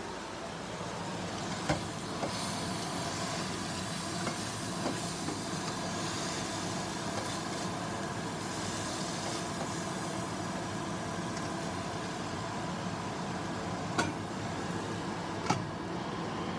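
Squash and okra steaming and simmering in a covered stainless frying pan just after water was added, a steady hiss. A few short clicks break it, about two seconds in and twice near the end.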